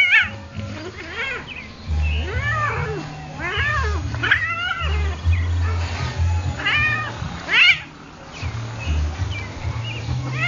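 A domestic cat yowling and meowing over and over, about one drawn-out, rising-and-falling cry a second, while a dog pins it down and mouths it. There is a low rumble underneath.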